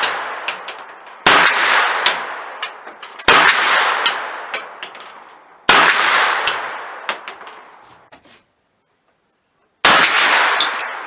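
Four AR-15 rifle shots, about two seconds apart with a longer pause before the last, each followed by a long echo that dies away. Small metallic clinks sound between the shots.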